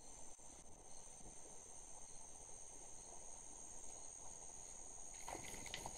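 Faint, steady high-pitched insect chorus over low background noise, with a few short scuffs and knocks near the end.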